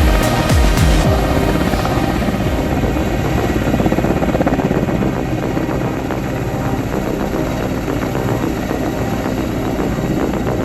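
Helicopter running, a steady loud rotor chop and turbine noise, with music mixed in; in the first second a regular beat stands out.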